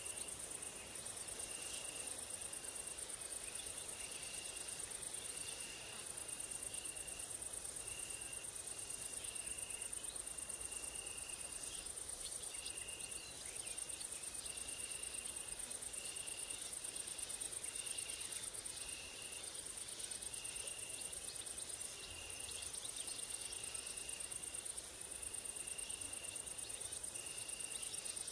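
Crickets and grasshoppers stridulating: a continuous, very high-pitched shrill that dips briefly every few seconds, over a lower-pitched chirping in short, regular pulses.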